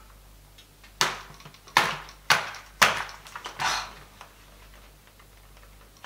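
Five quiet sharp taps, about half a second to a second apart, each trailing off briefly: handling noise of a toy thermometer held in a plastic baby doll's mouth.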